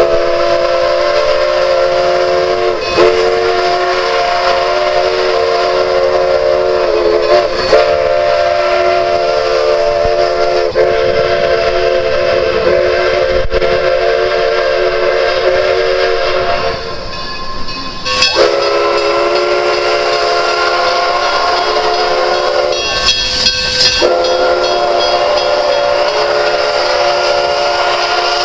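Steam locomotive whistle blowing long, steady blasts of several tones sounding together. It weakens briefly a little past the middle, and its tone shifts for about a second later on.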